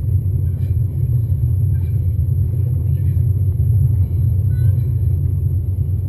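Speedboat under way: a steady low rumble of engine and hull noise.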